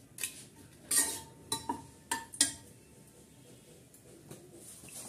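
A steel ladle clinks against a pressure cooker pot while stirring bay leaves in oil. About six sharp clinks come in the first two and a half seconds, one leaving a short metallic ring.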